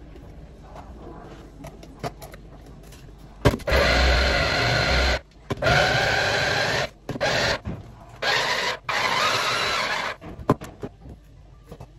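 Small electric food chopper running in five pulses of one to two seconds each as its top is pressed, mincing parsley, tomato and pepper. Before it starts there are light knocks and rustling as the bowl is filled with herbs.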